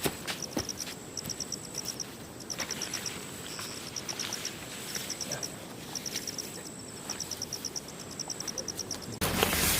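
Crickets chirping in quick groups of about five high pulses, over a steady high insect trill, with scattered faint clicks. About nine seconds in, a loud rushing noise cuts in abruptly.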